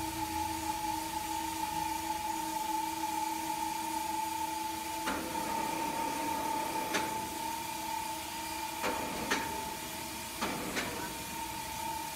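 Overhead gantry crane's electric hoist running with a steady whine. A few sharp metallic clanks from the cables and rigging come about halfway through and again near the end.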